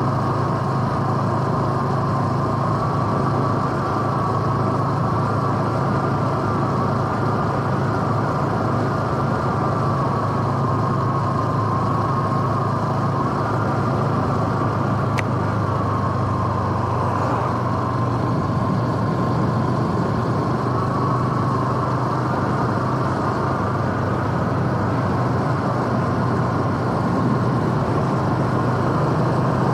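Honda Super Cub C125's single-cylinder four-stroke engine running at a steady pace as the bike is ridden.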